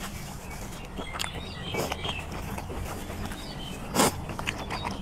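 Mouth sounds of a man eating chilli-drenched squid: scattered wet mouth clicks, and sniffling into a tissue early on. About four seconds in comes a short, sharp breath blown out through pursed lips, the loudest sound.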